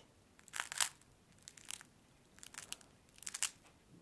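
Flaky maple-syrup pecan puff pastry crackling as fingers squeeze and break its crisp layers, in four short bursts.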